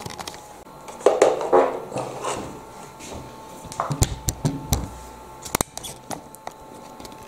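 Handling noises on a desk: a few short muffled sounds about a second in, then sharp clicks and knocks around four seconds in and again twice in quick succession near five and a half seconds, over a faint steady hum.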